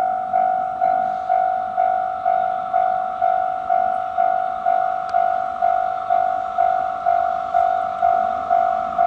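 Japanese level-crossing warning bell ringing: one clear ding repeated steadily about twice a second, each strike fading before the next. It signals that a train is approaching the crossing.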